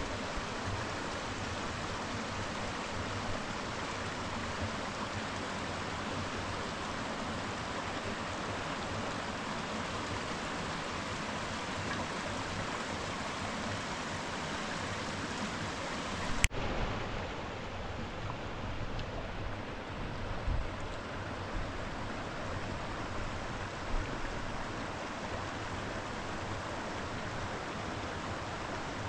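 Steady rushing of a shallow stream running over stones, broken by one sharp click a little past halfway, after which the hiss is slightly duller.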